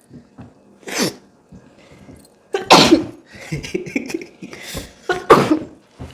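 Person sneezing hard three times, about two seconds apart, with breathy sniffs in between: sneezing fits brought on by sniffing sneezing powder up the nose.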